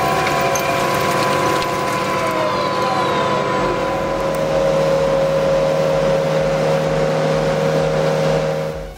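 Komptech Topturn X55 compost turner running steadily as its drum turns through a compost windrow: an even mechanical drone with a few steady tones, the low end growing heavier about three and a half seconds in.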